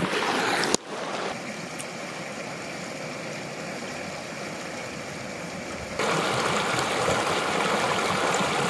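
River water rushing in a steady hiss. It changes abruptly just under a second in and grows louder about six seconds in.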